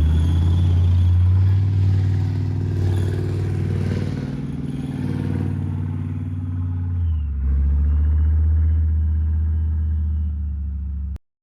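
A Gepard self-propelled anti-aircraft gun's diesel engine running with a steady low drone. Its sound shifts about seven seconds in, and it cuts off suddenly near the end.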